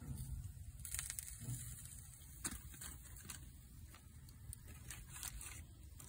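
Faint crinkling and scattered light clicks of aluminium foil being handled by a gloved hand, over a low rumble.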